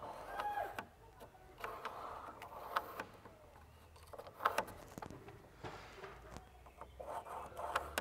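Faint scratching of a pencil drawing a line along the edge of a spirit level on a softwood gate board, in several short strokes with light clicks between them.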